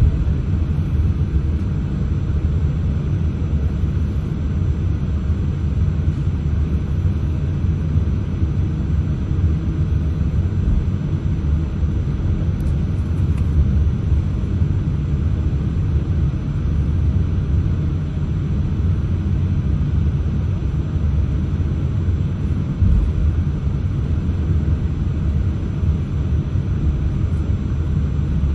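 Steady low cabin rumble of a Boeing 787-8 taxiing, its Rolls-Royce Trent 1000 engines at idle thrust. There is a faint thin high whine over it, and a couple of slight low bumps.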